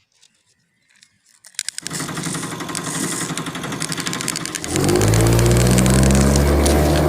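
Engine sound: near silence at first, then a rapid clattering from about a second and a half in, then a loud steady engine drone from about five seconds in.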